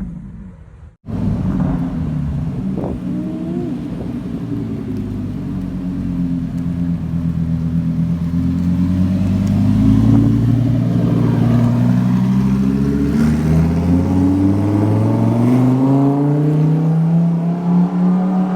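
Car engine running at low revs, a steady drone that sets in after a brief gap about a second in. Its pitch dips a little and then climbs slowly over the last several seconds as the revs build gently.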